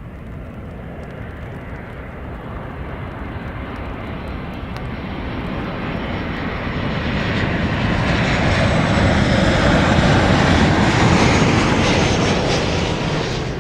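Airliner engines passing the runway at high power, the noise building steadily to a peak about ten seconds in and then starting to fade, with a faint falling high whine near the peak.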